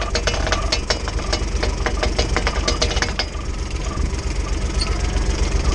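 Kawasaki Mule utility vehicle's engine idling steadily, with a quick run of sharp clicks from the hand winch being cranked to lift a round bale, stopping about three seconds in.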